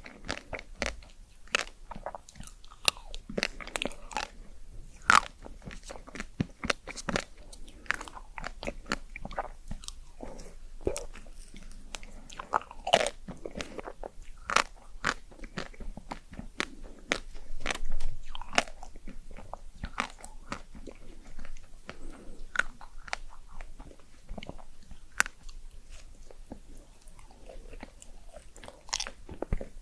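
Close-miked eating: crunchy bites and chewing, with many irregular sharp crackling clicks.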